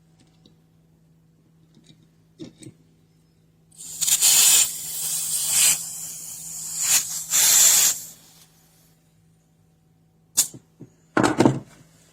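Pressurised gas hissing loudly in several spurts for about four seconds, followed by a few sharp clicks near the end.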